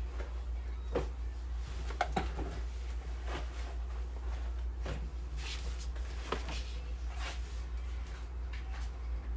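A steady low electrical hum with scattered light clicks and knocks, about six of them, at irregular intervals.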